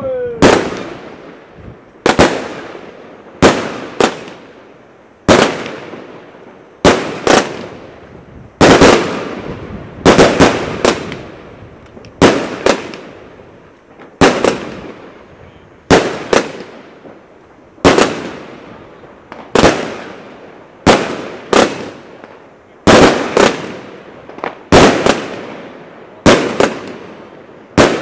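Royal Fireworks 'Solid Stone' fireworks cake firing a steady string of sharp bangs, about one or two a second and some in quick pairs. Each bang trails off in a short fading echo as its shell bursts in the sky.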